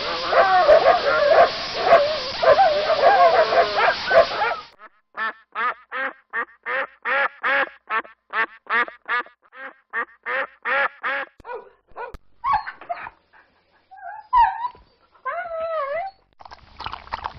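Dog sound effects: overlapping dog snarls and whines that cut off abruptly about five seconds in, then a fast run of short calls, about three a second, that thins out into scattered calls, with duck quacking among them.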